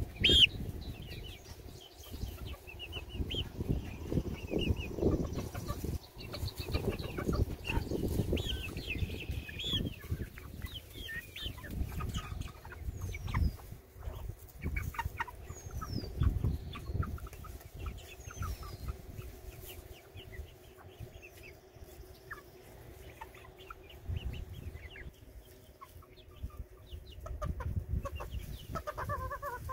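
A flock of hens clucking and murmuring in short, repeated calls, close by, over irregular low rustling and bumping near the microphone.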